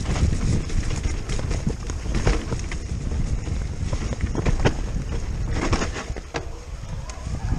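Riding noise from a Giant Stance E+ electric mountain bike going fast down a rough dirt singletrack: wind buffeting the microphone with a steady low rumble, and frequent rattles and knocks as the bike hits bumps in the trail.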